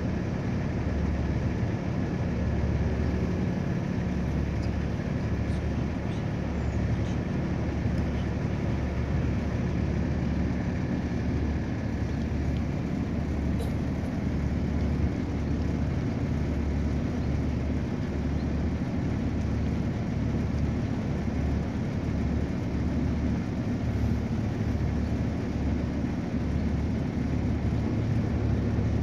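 Steady low rumble of a passenger river boat's engine under way, with the wash of the water, heard from the open top deck.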